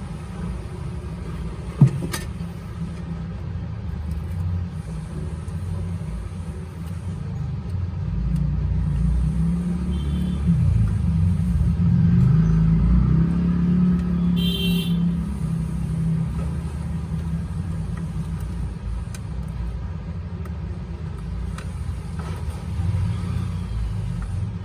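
Low engine rumble of a motor vehicle, swelling and shifting in pitch in the middle, with a sharp click about two seconds in.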